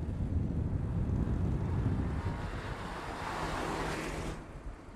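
2016 Mercedes-Benz E-Class driving on the road: a steady low engine and tyre rumble, with a rushing noise that swells over a couple of seconds and drops away shortly before the end.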